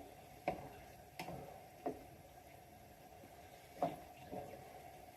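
A spoon stirring bolognese sauce in a pan, tapping against the pan about five times as light clicks and knocks over a faint steady background.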